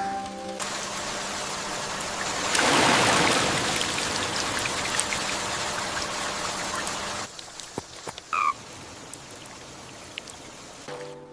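Heavy rain falling, swelling louder a few seconds in, then dropping off suddenly to a lighter patter of drips. A short falling two-note chirp sounds during the quieter part.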